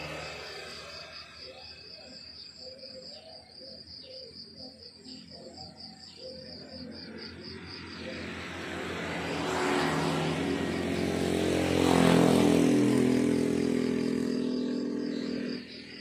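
Crickets chirping in a steady, rapidly pulsing high trill. From about halfway through, a motor vehicle's engine comes up and passes, loudest about three-quarters of the way in, then drops away suddenly just before the end.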